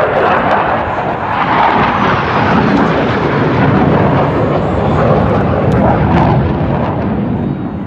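Loud jet engine noise from a military jet flying past in an air show demonstration, with a steady, rushing sound.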